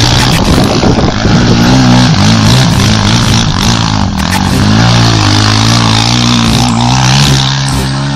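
Quad bike (ATV) engine revving up and down repeatedly as the machine slides through loose sand, settling to a steadier note near the end.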